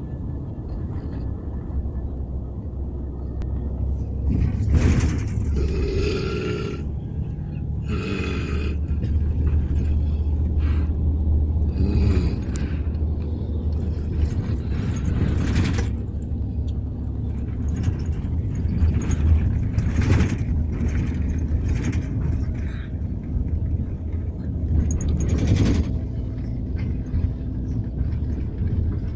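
A man snoring loudly in his sleep, a heavy snore every few seconds, over the steady low rumble of a moving bus.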